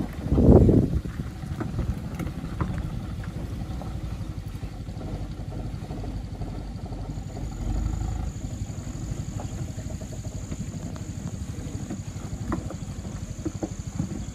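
Loaded sugarcane truck's diesel engine labouring at low speed over a muddy, rocky track. There is a brief loud burst about half a second in and occasional sharp knocks later.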